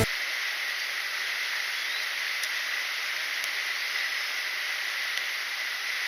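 Mountain stream flowing: a steady rushing hiss of water.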